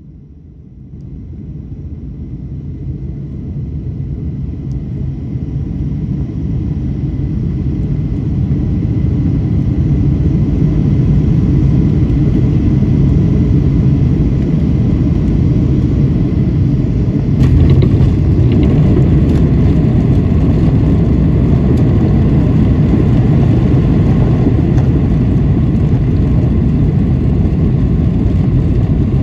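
Jet airliner's engines and landing roll heard from inside the cabin over the wing, a rumble that builds over about ten seconds into a steady loud roar as the plane decelerates on the runway after touchdown, with a brief knock about seventeen seconds in.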